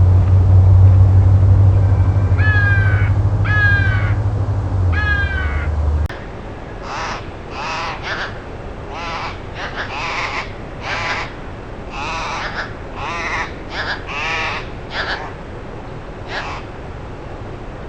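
Bird calls: three calls over a loud, steady low hum, then, after an abrupt change, a run of about a dozen calls repeated roughly once a second.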